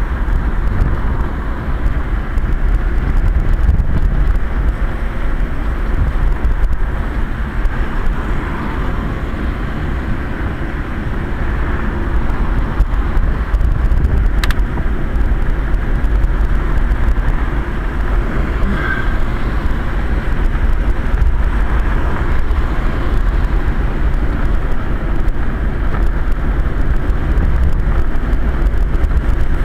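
Steady rumble of a Quest velomobile riding on a wet road, heard from inside its closed hood: rolling and wind noise, heaviest low down, with one short click near the middle.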